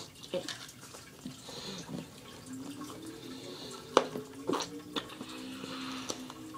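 Wet sucking and smacking of a mouth working on a hard lollipop, with sharp wet clicks, the loudest about four seconds in. From about two and a half seconds in, a low wavering hum comes through the closed mouth.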